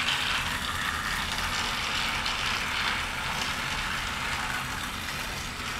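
Battery-powered TrackMaster Rebecca toy engine, fitted with James's motor, running along plastic track pulling a train of wagons: a steady whir of motor and gears with wheel rattle, fading slightly as it moves away.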